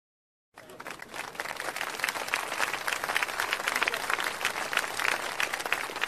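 Crowd applause: many hands clapping in a dense, irregular patter that starts about half a second in and builds over the next second or two.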